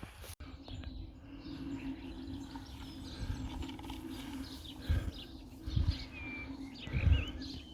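Small birds chirping and calling in short bursts over a steady low hum, with a few soft low thumps about two-thirds of the way in.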